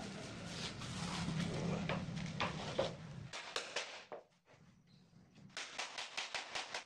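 Handling noise and scattered knocks of wood being moved on a plywood sheet, then, after a brief lull, a quick run of light wooden clicks, about six a second, as thin plywood strips are set down and pushed into place.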